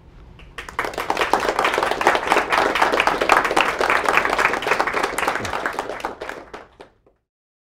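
Audience applauding, rising in about a second in and dying away near the end before cutting off.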